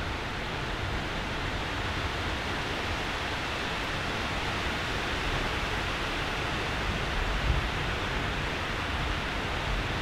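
Steady heavy rain, a dense even hiss with a low rumble underneath, and a brief low bump about seven and a half seconds in.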